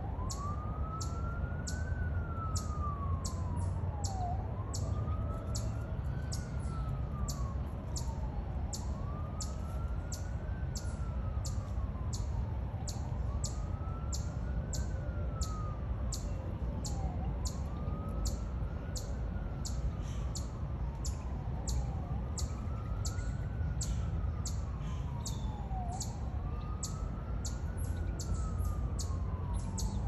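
Ambulance siren in a slow wail, its pitch rising and falling about once every four seconds, over a low rumble. A high chirp repeats steadily about twice a second.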